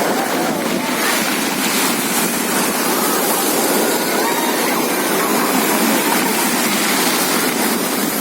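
Sea surf in a light storm: waves breaking and washing ashore, a steady rushing noise.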